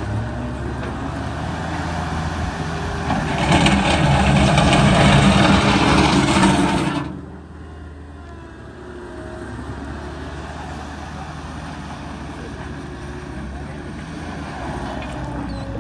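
New Holland L175 skid steer's diesel engine running. About three seconds in it grows much louder and harsher for roughly four seconds, then drops suddenly back to a quieter, steady run.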